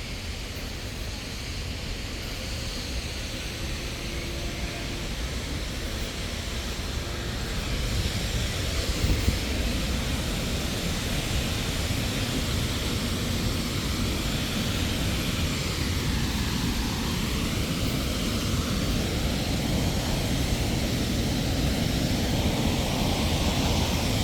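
Waterfall rushing steadily, a continuous roar of falling water that grows gradually louder.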